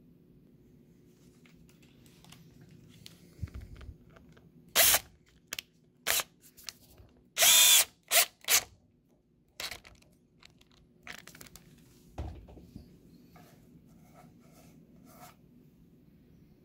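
Power drill driving a wood screw into a pre-drilled, countersunk hole in pine, run in a series of short trigger bursts. The longest burst, just past the middle, carries a whining motor pitch.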